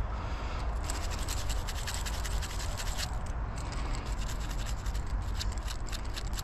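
Gloved fingers scratching and rubbing dirt off a small dug-up object, a dense run of quick scratches and clicks.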